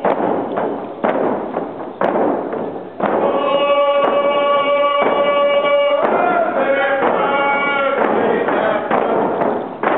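Hide frame hand drums struck together about once a second. From about three seconds in, a group of voices sings a chant in long held notes over the beat.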